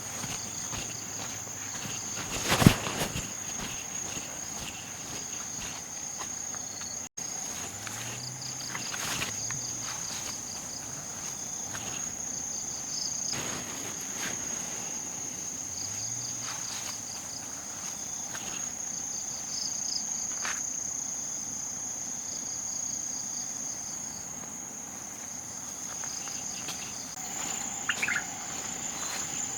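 Steady high-pitched drone of insects, with scattered light clicks and rustles. A single sharp crack about two and a half seconds in is the loudest sound, and a few bird chirps come near the end.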